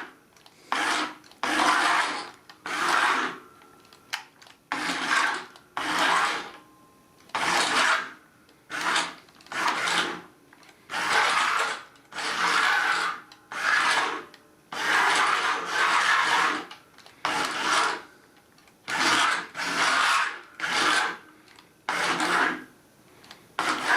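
Remote-control Bumblebee toy's electric motor and plastic gears whirring in short bursts, about twenty in a row with brief pauses between them, as it is worked from the remote in robot mode.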